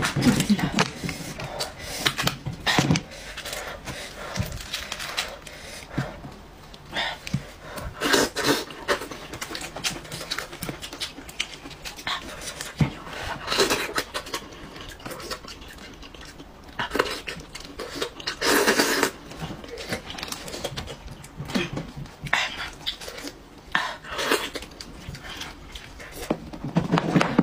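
Close-up eating sounds: wet chewing and sucking of meat from a sauce-covered sheep's head, with tearing as gloved hands pull the head apart. They come in irregular bursts.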